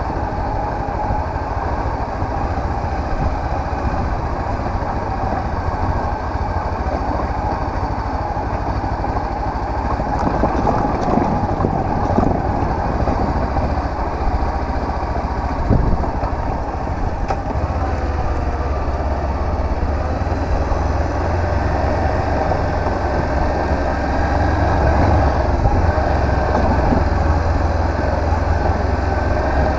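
Honda CB500X motorcycle's parallel-twin engine running steadily while riding, with wind and road noise over it and a couple of sharp knocks about halfway through.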